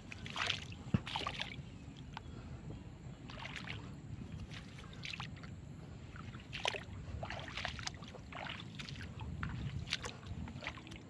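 Cast net and its rope being hauled in hand over hand out of shallow river water, with irregular splashes and drips and a sharper splash about a second in.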